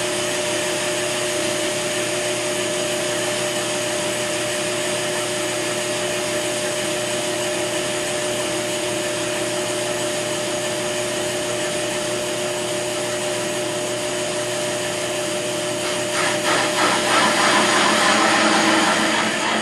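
Ammco brake lathe running with its cutting bits on a fast-feed pass across a brake rotor, stripping the worn surface down to bare metal: a steady mechanical whir with a constant two-tone hum. A little over three-quarters of the way through, the sound grows louder and rougher.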